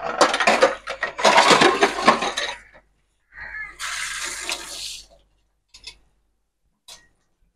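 Rice-and-bottle-gourd adai batter sizzling on a hot cast-iron dosa tawa. It comes in two loud spells of hiss, the first about two and a half seconds long and the second shorter and higher, with a few faint clicks near the end.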